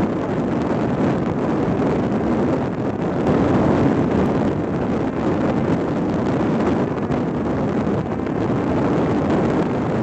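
Steady rush of airflow over the onboard camera's microphone of a Parrot Disco fixed-wing drone in flight, mixed with the drone's spinning propeller.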